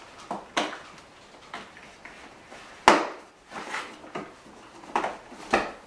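Knocks and clicks from a child car seat's plastic shell and fittings as it is adjusted by hand and pushed down into a padded wheeled travel bag, about eight of them, the loudest about three seconds in.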